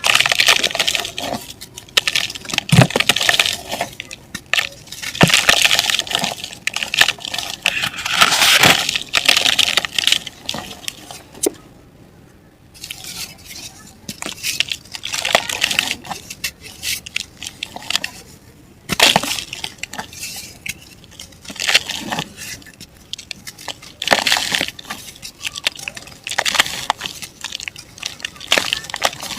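Dry lumps of mud and black dirt crumbling and crunching, in repeated bursts of gritty crackling with sharp snaps, a few seconds apart.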